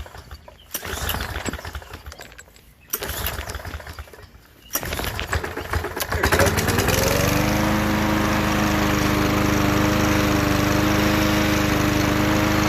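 Small lawn mower engine cranked over in three rough bursts of a second or two each, then catching about six seconds in. It revs up and settles into a steady run.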